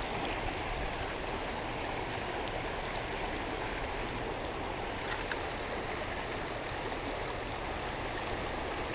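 Steady rushing of a shallow river flowing fast over riffles.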